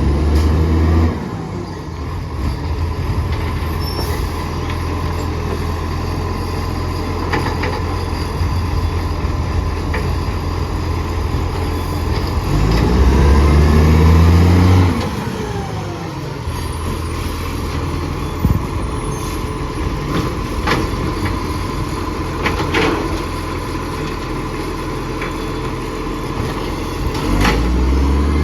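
Diesel engine of a recycling garbage truck with an exhaust leak, running steadily and revving up three times, each rev held for a couple of seconds before dropping back. Sharp clanks and knocks sound in between.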